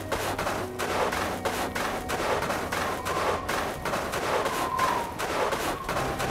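Battle ambience of distant gunfire: many rifle and machine-gun shots overlapping, several a second, with no let-up.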